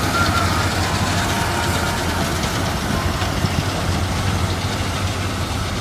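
Combine harvester's diesel engine running steadily with an even low hum.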